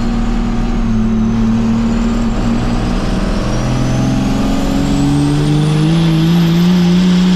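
First-gen Cummins 5.9 L 12-valve inline-six turbo diesel heard from inside the cab, pulling under load. Its note climbs steadily over the last few seconds with a rising turbo whistle, then drops suddenly near the end.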